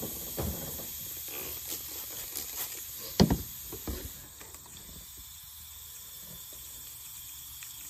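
Steady hiss of compressed air pressurising a 2JZ's cracked eBay intake manifold in a soap-water boost-leak test. A few knocks from handling the parts, the loudest about three seconds in.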